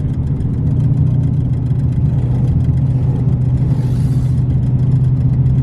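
Scion FR-S 2.0-litre flat-four running steadily under load with a fast, even knocking over the engine note: a spun or worn connecting-rod bearing, the engine losing power and close to failing.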